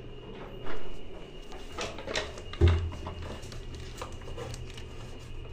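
Handling noises from a plastic toilet washlet seat and its fittings: a knock about a second in, a few light clicks, then a dull thump, the loudest sound, a little over two and a half seconds in.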